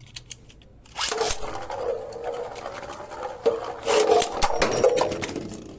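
Beyblade spinning tops whirring and clattering together in a plastic stadium, starting about a second in, with repeated sharp knocks as they collide.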